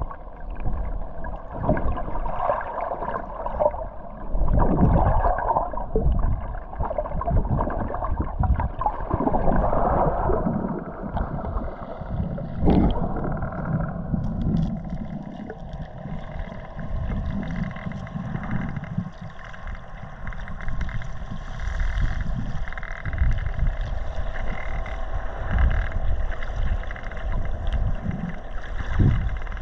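Muffled water sloshing and gurgling over a low rumble, with one sharp knock about thirteen seconds in.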